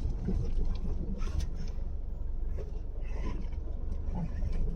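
Vehicle engine running with a steady low rumble, with scattered knocks and clatter, as the vehicle with the boat creeps onto a steep boat-launch ramp.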